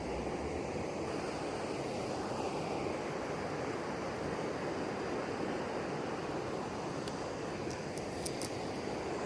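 Steady rushing of flowing river water, with a few faint ticks near the end.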